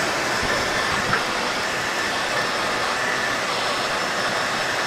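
Handheld hair dryer running steadily: a continuous rush of blown air with a faint motor whine.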